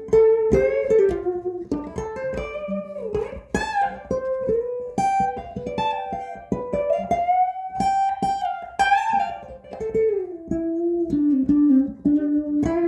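Electric guitar through Seymour Duncan Zephyr humbucker pickups, played as a melodic single-note line of picked notes with string bends and vibrato.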